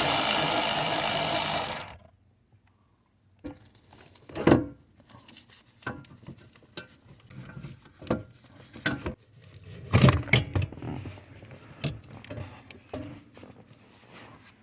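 A power tool runs steadily and stops about two seconds in, typical of a 10mm nut being run off. After a short pause come scattered clicks and knocks of hand tools and parts being handled.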